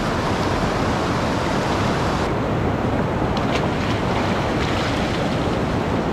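Steady rush of the Murti, a rocky mountain river, running fast over stones.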